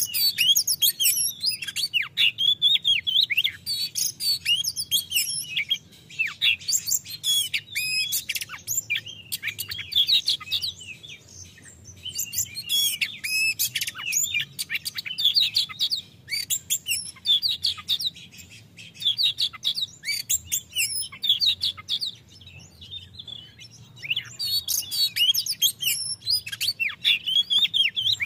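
Male oriental magpie-robin (kacer) singing loudly: rapid, varied whistled phrases mixed with harsher chattering notes, delivered in bouts with short pauses between them.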